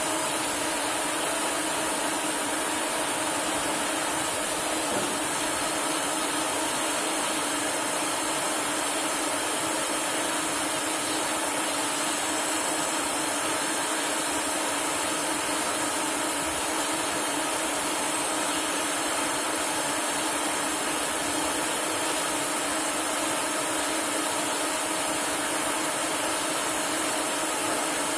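CNC lathe machining a metal part, its spindle and rotating cutting tool running steadily: a constant machine hum with a high hiss that does not change in pace or level.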